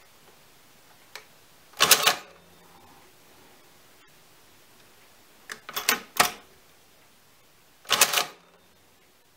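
Hamann Automat V electromechanical calculator cycling under its motor. There is a short, loud mechanical clatter about two seconds in as one addition runs, a quick rattle of several clicks around six seconds as the carriage shifts one place, and another clatter near eight seconds as the next addition runs. A small key click comes just before the first cycle.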